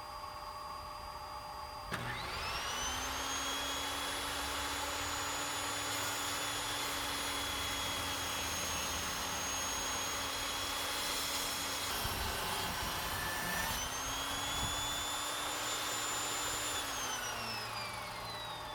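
Evolution table saw with a 10-inch 60-tooth carbide-tipped blade switched on about two seconds in, its motor whine rising quickly and then running steady. About two-thirds through, the sound changes for a couple of seconds as the blade cuts a miter through pressure-treated wood. Near the end, the saw is switched off and winds down with a falling whine.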